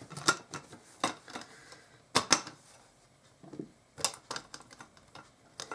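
Sharp metallic clicks and clinks from a stainless steel Zebra billy can and its wire bail handle as it is handled and drawn out of its fabric pouch: a handful of separate strikes, two of them coming as quick pairs.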